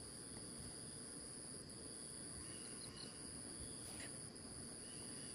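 Insects chirring with a steady, high-pitched, continuous tone over a faint low hiss.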